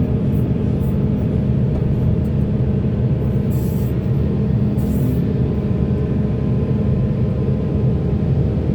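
Heavy diesel machinery running steadily: a deep engine drone, with brief high hissing bursts twice, about three and a half and five seconds in.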